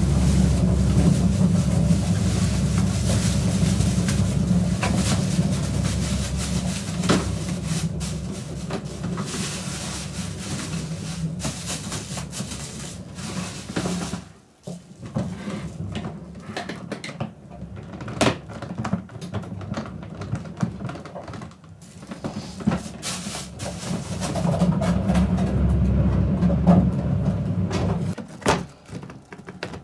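Plastic refill cassette and bag being handled and pressed into a litter-disposal bin: rustling with many short clicks and knocks. Under it is a steady low hum that stops about fourteen seconds in and comes back for a few seconds near the end.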